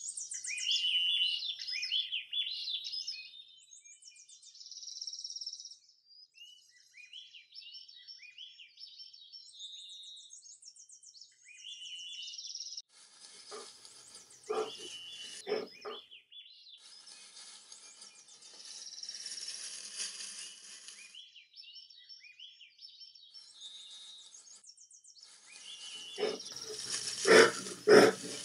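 Songbirds singing, with many short chirps and trills, joined by brief rustling bursts about halfway through. In the last two seconds, a run of loud, rough bursts takes over.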